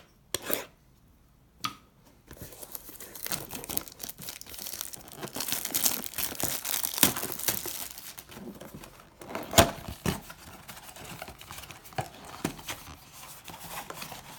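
Trading card box packaging being torn open, with wrapping crinkling and tearing. A few separate clicks come in the first two seconds, then continuous crackling and tearing, with one sharp snap about nine and a half seconds in.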